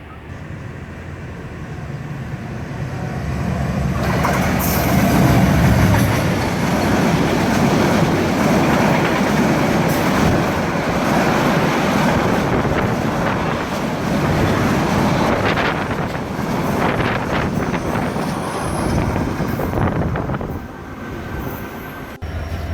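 Passing train running by on the adjacent track: wheels clattering over the rails. It swells over the first few seconds, stays loud, and eases near the end.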